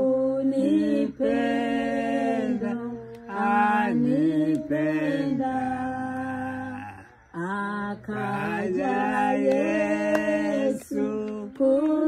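A very old man singing a worship song unaccompanied, in long held notes, with a brief break about seven seconds in.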